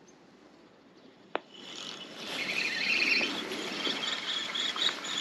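Spinning reel being cranked to retrieve line: a sharp click about a second and a half in, then a steady, finely ticking whirr from the reel's gears.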